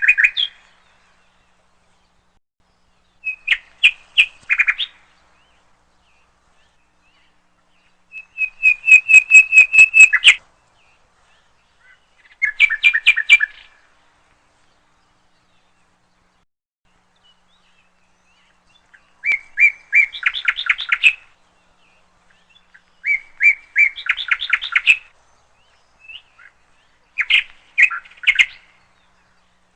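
A small songbird singing in short phrases of quick, repeated chirps, about seven phrases with pauses of a few seconds between them. The loudest, about eight seconds in, is a two-second run of evenly spaced notes.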